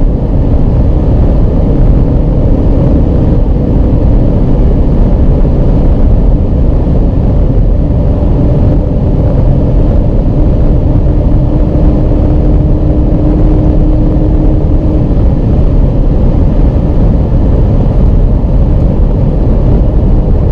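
Cabin noise of a VW Passat 2.0 BiTDI biturbo four-cylinder diesel at high speed, around 190–210 km/h: a loud, steady rush of wind and tyre noise over the engine's drone. A faint engine note rises slowly as the car pulls in sixth gear, then fades about three-quarters of the way through as the car slows.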